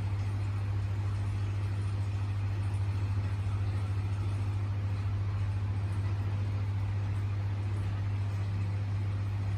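Aquarium pump running with a steady low hum, over a softer, even hiss of bubbling water.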